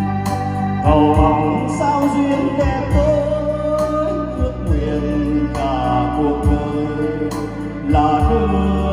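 A man singing karaoke into a handheld microphone over a backing track, played loud through a wedding PA system of line-array speakers and subwoofers during a sound check. The melody is sung in phrases over a steady backing with a regular low beat.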